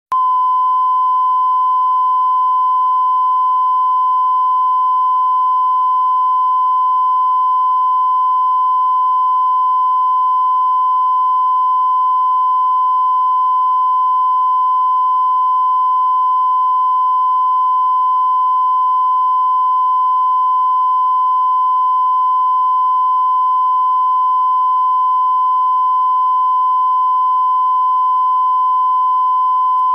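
Steady 1 kHz line-up tone, the reference tone that accompanies a grey-scale test pattern at the head of a videotape. It holds one pitch and level, with fainter higher tones above it.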